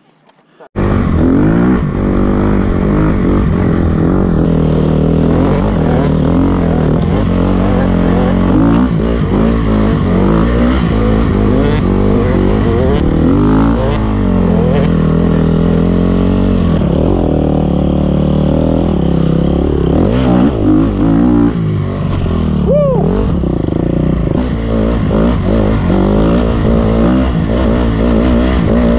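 2012 KTM XCF 250F's freshly rebuilt single-cylinder four-stroke engine revving as the dirt bike is ridden, its pitch rising and falling with the throttle and gear changes. The engine sound comes in suddenly about a second in.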